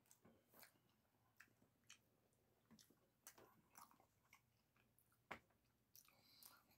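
Faint, scattered chewing and wet mouth clicks from a person eating soft food (chicken enchiladas with rice and beans), with one slightly louder click about five seconds in.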